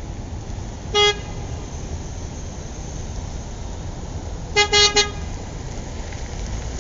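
Car horn: one short toot about a second in, then a quick run of three or four short toots near the five-second mark, over a steady low rumble.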